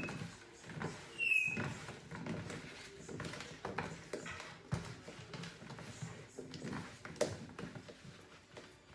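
Raw potato chunks being rubbed and turned by hand in an oiled roasting pan: irregular soft knocks and rustles. A short high squeak sounds about a second and a half in.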